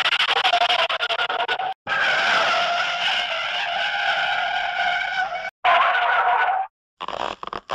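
Car tyres screeching in a few skids a second or more long each, with a steady high squeal, separated by short gaps.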